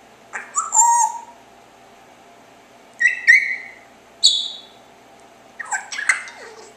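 African grey parrot chirping and whistling in four short bursts, several of the notes gliding down in pitch.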